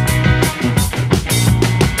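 Background music with a steady drum-kit beat and a bass line.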